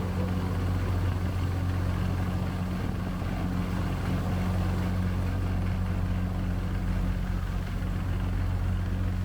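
Passenger boat's engine running with a steady low drone, heard from on board, with an even hiss of water and wind over it.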